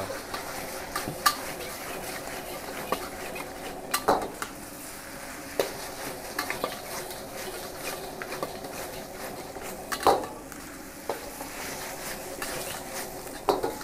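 Metal spatula scraping and clanking against a steel wok while stirring chicken in thick red sauce, over a steady sizzle of frying. The strikes come irregularly, the loudest clank about ten seconds in.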